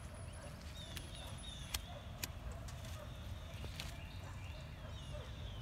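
Quiet outdoor background: a steady low rumble with faint chirps, and two sharp clicks a half second apart about two seconds in.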